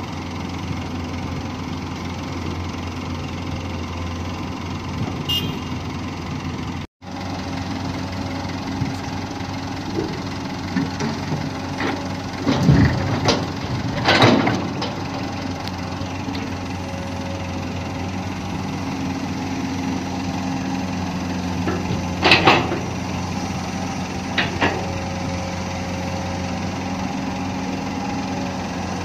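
Komatsu PC200 long-reach excavator's diesel engine running steadily under hydraulic work. About halfway through there is a rush and a burst of loud knocks as a bucketload of soil drops into the steel dump-truck bed, and later a couple more sharp knocks. The sound cuts out for an instant about seven seconds in.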